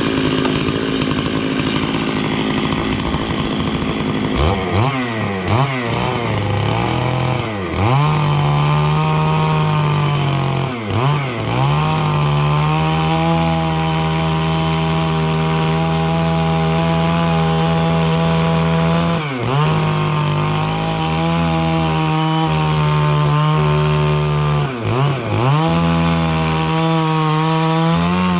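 Stihl 660 two-stroke chainsaw with a 36-inch bar rip-cutting dry larch along the grain. The engine is held mostly at a steady high-pitched full throttle under load. Its pitch dips and climbs back several times in the first eight seconds, then briefly drops and recovers about 11, 19 and 25 seconds in.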